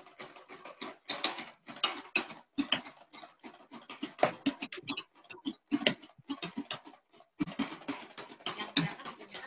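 Stainless steel spoon stirring coconut oil and lye solution in a plastic bowl, clicking and scraping against the sides in quick, irregular strokes with a couple of short pauses; the raw soap is being mixed toward light trace.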